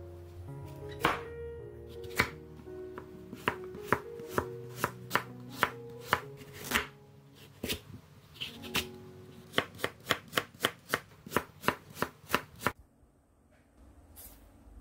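Kitchen knife chopping through a raw Korean radish on a wooden cutting board: a run of sharp knocks that quickens to about four strokes a second, then stops near the end. Soft background music plays underneath.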